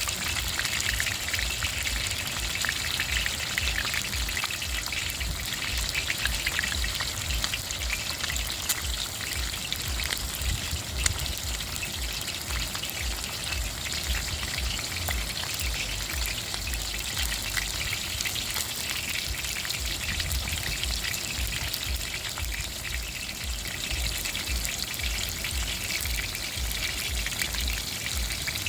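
Fish frying in oil in a pan: a steady sizzle of dense crackling with a few sharper pops, over a low irregular rumble.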